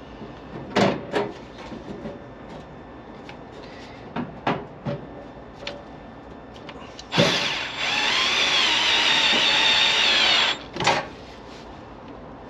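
Cordless drill driving a screw into a breaker panel's metal cover, running for about three and a half seconds starting about seven seconds in. Before it come a few light clicks and knocks of the drill and cover being handled, and another knock follows.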